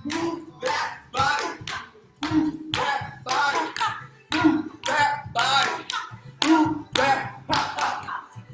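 Rhythmic hand clapping, about three claps a second, with voices sounding along with the claps.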